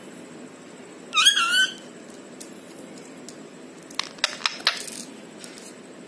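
Rose-ringed parakeet gives one short, wavering squawk about a second in. Around four seconds in comes a quick run of about five sharp clicks as it handles and bites a plastic pen.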